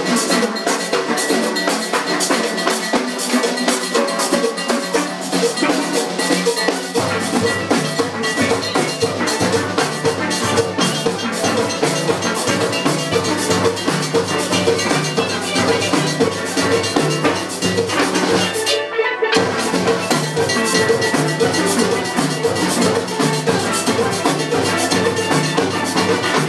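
Steel band playing live: many steel pans struck in a fast, busy rhythm. Deep bass-pan notes come in about a quarter of the way through, and the whole band stops for an instant about three quarters in, then plays on.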